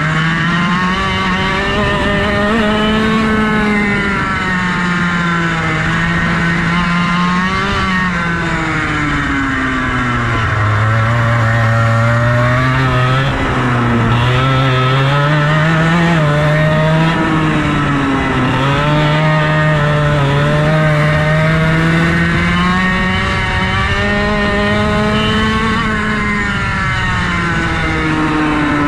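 Two-stroke racing kart engine at full race pace, heard from the driver's seat. Its pitch climbs on the straights and drops into each corner, falling lowest for a slow bend about ten to fourteen seconds in before winding up again.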